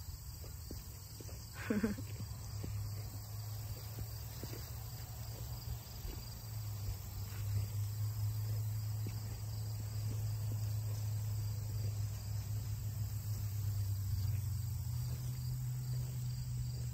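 Crickets and other insects chirping steadily over a steady low hum, with a brief rising call about two seconds in.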